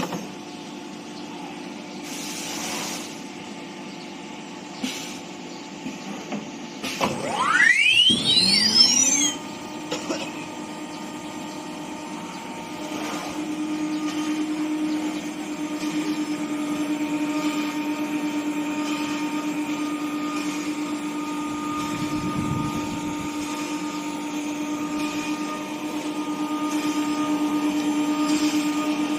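Automatic-tool-change CNC nesting router running with a steady hum. About seven seconds in, the spindle motor spins up: a whine climbs steeply in pitch over about two seconds. The machine then runs on steadily, a little louder from about thirteen seconds in.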